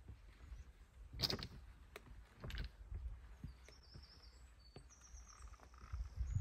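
A hiker's footsteps knocking and scraping on stones while scrambling up a rocky stream bed, the loudest steps about a second and two and a half seconds in, over a low rumble. A small bird chirps a quick, stuttering high-pitched phrase in the second half.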